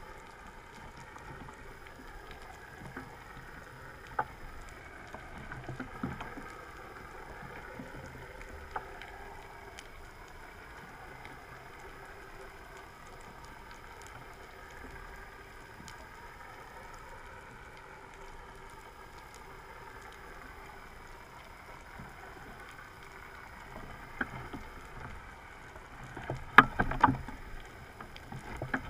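Underwater ambient noise picked up by a submerged camera: a steady hiss with scattered clicks, then a cluster of loud knocks and crackles near the end.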